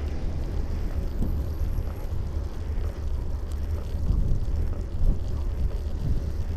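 Wind buffeting the microphone of a camera on a moving bicycle: a steady, uneven low rumble.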